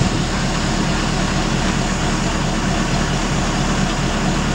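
Crane engine running steadily under load while it holds roof bearers in place, a continuous low rumble with no distinct knocks or changes.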